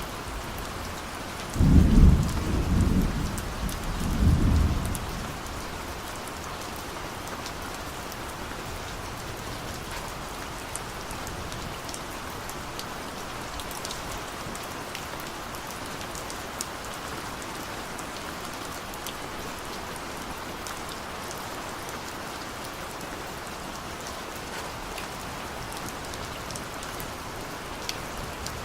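Steady rain falling, with a peal of distant thunder rumbling low about two seconds in for roughly three seconds, the loudest sound here. Another thunder rumble begins right at the end.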